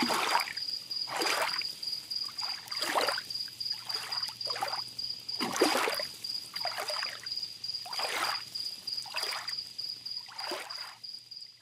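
Small sea waves lapping and splashing on a beach, a short wash about every second, with a steady high cricket trill throughout.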